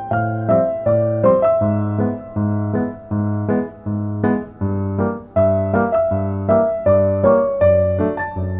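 Background piano music: steady repeated chords over a low bass, with a gentle melody on top.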